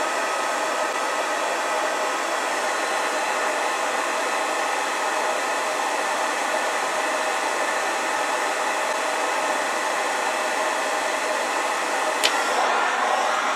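Electric heat gun running steadily, blowing hot air to shrink heat-shrink tubing over a motor lead. A single sharp click near the end.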